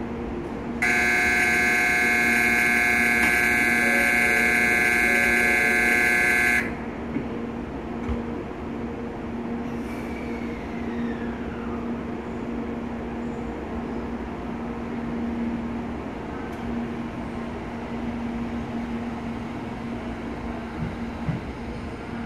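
A Shinkansen platform's electronic departure bell rings loudly and steadily for about six seconds, then cuts off, signalling that the train is about to leave. The N700-series bullet train then pulls out with a steady low running noise.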